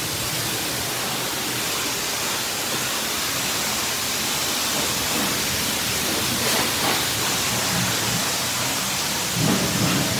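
Coin-operated self-serve car wash's high-pressure wand spraying water onto a car's body in a steady hiss, a high-pressure rinse.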